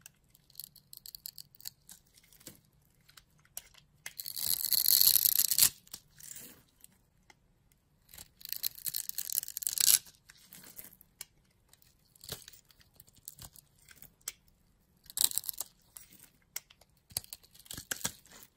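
Utility knife blade slicing through a bar of soap scored into small cubes, the cubes crackling and breaking off under the blade. There are two long, crisp crunching passes about four and eight seconds in, and shorter ones near the end, with small clicks and crumbles between.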